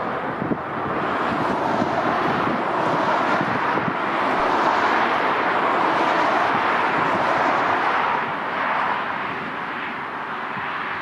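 Jet airliner passing, a steady engine roar that swells about a second in, holds, and eases off after about eight seconds.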